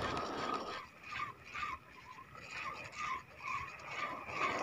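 Ultralight spinning reel being cranked to retrieve a cast lure, its turning gear giving a soft whirr in short, repeated pulses, a few each second.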